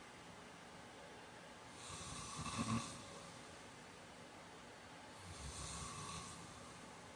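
A man snoring in his sleep: two snores about three seconds apart, the first louder with a brief sharp peak near its end, the second softer.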